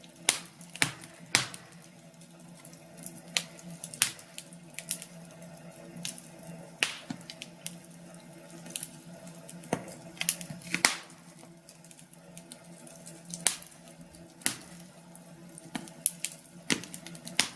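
Fire crackling in a fireplace: irregular sharp pops and snaps, scattered unevenly, over a faint steady hum.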